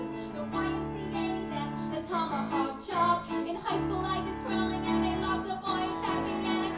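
A woman singing a comic musical-theatre song, accompanied by piano and cello playing sustained chords.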